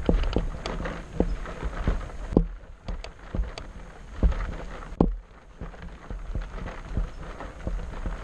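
Footsteps crunching and scraping on a dry, rocky dirt trail, picked up close by a body-mounted camera: uneven thuds and scuffs about once or twice a second over a low rumble of handling noise.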